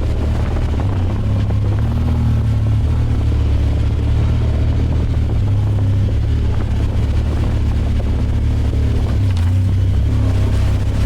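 The 2022 Honda Pioneer 1000 side-by-side's parallel-twin engine runs steadily at low trail speed, a continuous low drone that wavers slightly without revving hard.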